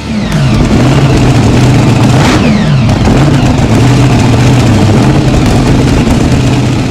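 V-drive boat's inboard engine running loud, its pitch dropping and climbing several times as the throttle is worked. There is a short rushing noise about two seconds in.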